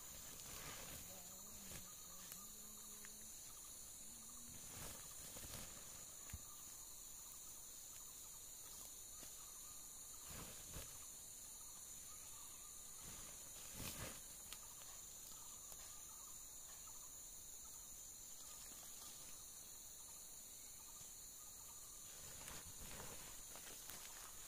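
Faint, steady high-pitched drone of insects, with a few soft rustles and thuds as handfuls of loose leaf-mould soil are scooped up and dropped into a woven plastic sack.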